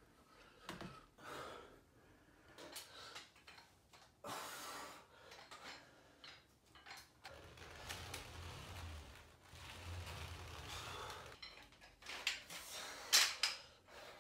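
Faint home-workout sounds: scattered creaks and knocks, then an ab wheel rolling on a hardwood floor with a low rumble through the middle, and sharp clinks of hand weights near the end.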